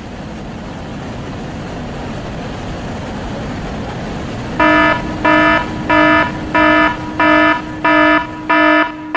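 Rushing floodwater making a steady noisy roar that slowly grows louder; about four and a half seconds in, a car horn starts honking in a repeating pattern of loud beeps, about one and a half a second, the pattern of a car alarm going off.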